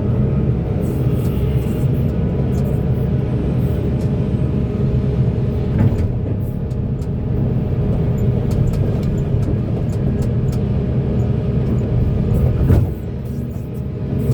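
Large hydraulic mining excavator's diesel engine running steadily under load, with a sharp knock about six seconds in and a louder one near the end, after which the engine note drops.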